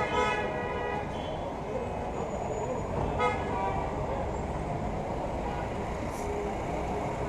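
Street traffic: a car horn sounds for about a second at the start and again briefly about three seconds in, over a steady rumble of traffic.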